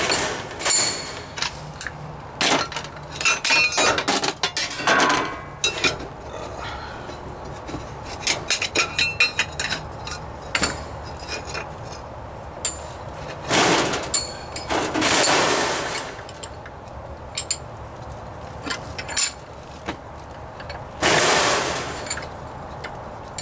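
Hammer blows on a steel sheet-metal patch, driving a grooving tool to form a stiffening bead: quick runs of sharp metallic strikes with a short ring. In the second half the strikes thin out, and there are three longer rasping sounds of about a second each.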